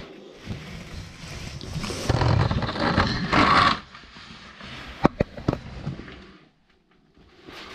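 Caver working through a tight rock squeeze: a loud stretch of scraping and rustling as body and gear rub against the rock, then a few sharp knocks about five seconds in.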